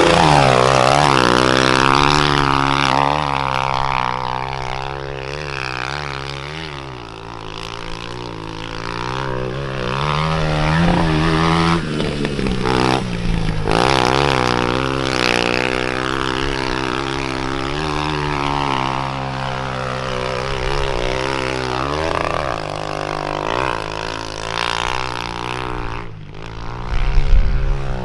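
Suzuki dirt bike engine revving up and down as it is ridden, its pitch rising and falling over and over. Near the end, after a short break, a louder, rougher low engine sound comes in.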